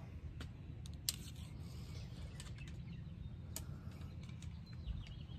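A few faint, sharp clicks and knocks of something being handled, over a steady low outdoor rumble.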